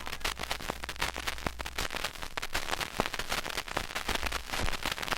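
Crowd applause from a 1950s stock sound-effect recording, now thinned to many separate hand claps at an even level.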